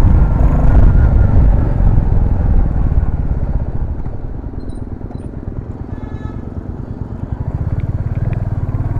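Royal Enfield Classic 350's single-cylinder engine and exhaust while being ridden. It is loud at first, eases off from about three seconds in, and from about seven and a half seconds settles into a steady, even pulsing beat.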